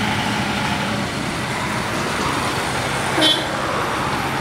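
Steady road traffic: motor vehicles running past on a busy road. A little over three seconds in there is one brief high-pitched sound.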